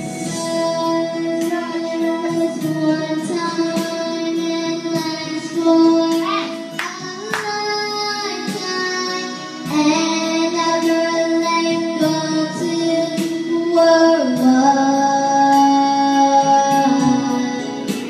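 A young girl singing a song into a microphone, holding long notes and gliding between pitches, over instrumental backing music with a steady beat.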